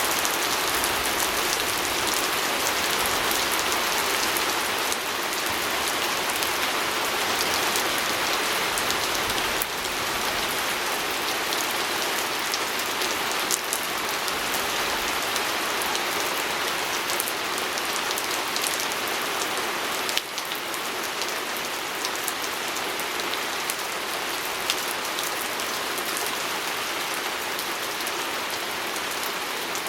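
Steady rain pattering on a window pane, with many individual drops ticking through the steady hiss.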